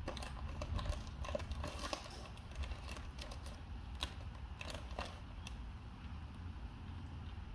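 Plastic snack wrapper crinkling and crackling in quick, irregular snaps as a baby monkey tugs and rummages in it. The crackles die down after about five seconds.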